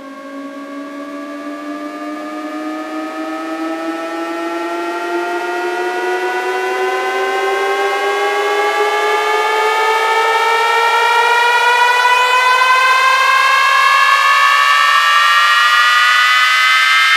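Synthesized riser sweep from an electronic DJ track: a siren-like pitched tone that climbs slowly and steadily, growing louder over the first dozen seconds, with a second rising tone joining about halfway through.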